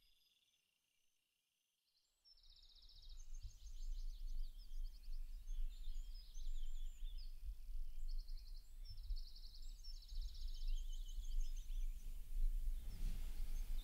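About two seconds of silence, then birdsong: short bursts of fast trills and chirps over a low steady rumble. A louder noise starts to swell near the end.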